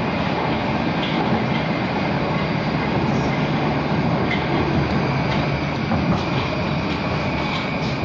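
Cabin noise of a Moscow Metro "Moskva-2020" train running through a tunnel: a steady rumble of wheels and running gear with a few faint rail clicks.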